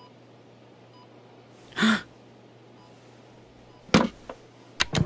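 Animated-film sound effects: a hospital heart monitor beeping faintly about once a second, a short loud rush of noise about two seconds in, then a sharp thud near four seconds and two quicker knocks just before the end as a cartoon penguin tumbles onto a wooden floor.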